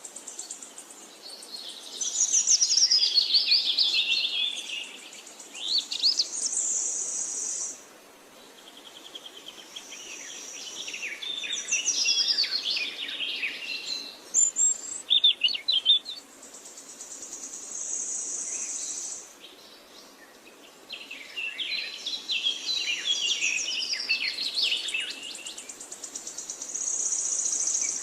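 Small birds chirping and singing in bursts of quick, sweeping high notes. Between the bursts there is a thin, high, steady trill held for a few seconds at a time.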